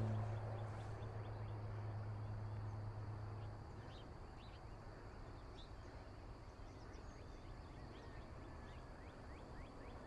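Faint birdsong: scattered short bird chirps over a quiet background, with a low steady hum that stops about three and a half seconds in.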